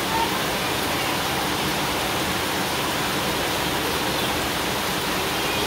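Heavy rain falling steadily, an even rush of noise without breaks.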